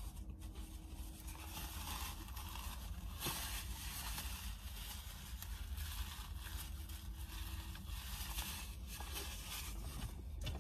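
Paper napkin rustling and crumpling as it is rubbed over the mouth and hands, in uneven bursts of crinkling.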